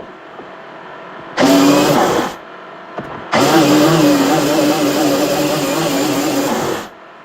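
A motorised tool running in two bursts, switched on for about a second and then for about three and a half seconds, each start and stop abrupt, with a steady hum that wavers slightly in pitch.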